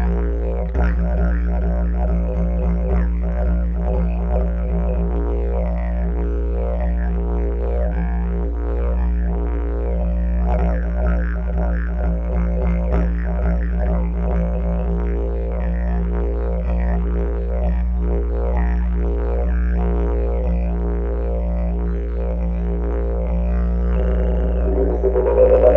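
Didgeridoo playing a continuous low drone, its overtones shifting in a fast rhythmic pattern; it swells louder and brighter near the end.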